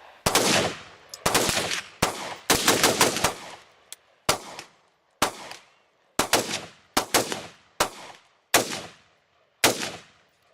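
Rapid, uneven gunfire from rifles: about twenty sharp shots, several in quick bursts, each trailing off in a short echo.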